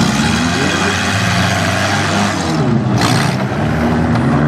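Several four-cylinder demolition derby cars running and revving at once, their engine pitches rising and falling over one another. A short burst of noise comes about three seconds in.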